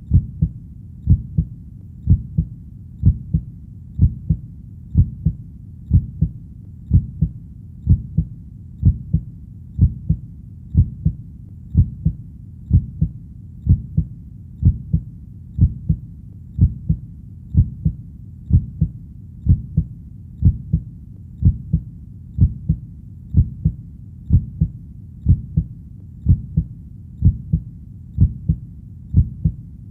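Heartbeat: a steady double thump (lub-dub), low in pitch, repeating at an even pace of about one beat a second.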